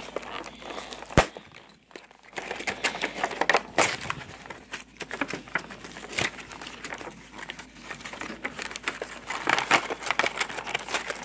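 Cardboard toy box and clear plastic bag being handled and pulled apart: irregular crinkling and crackling of plastic and card, with one sharp click about a second in.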